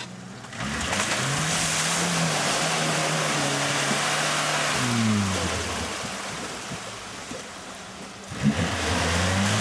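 Suzuki off-road 4x4's engine revving hard as it ploughs through a muddy water pit, tyres spinning and churning up mud and water. The revs hold for a few seconds, drop back, then climb again near the end.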